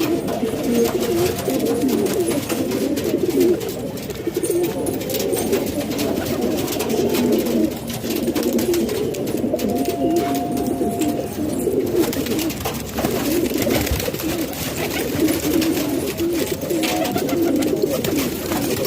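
Many domestic pigeons cooing together, a continuous overlapping chorus of low, throaty calls, with light scratching and clicking from the birds.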